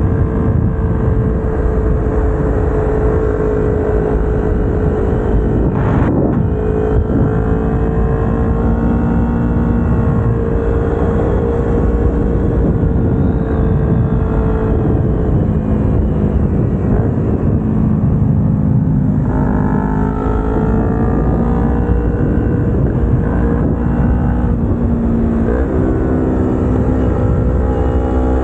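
Kawasaki Ninja 250R's parallel-twin engine, fitted with new headers and exhaust, running under way with low wind rumble. Its note holds steady for the first half, dips and changes about halfway, and climbs again near the end.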